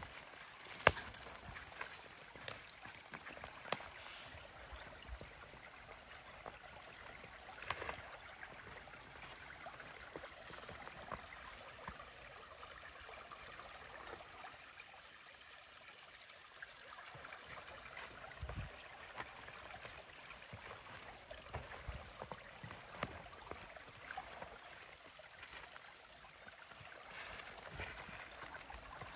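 Stream water trickling and gurgling steadily, with a few sharp clicks, the loudest about a second in.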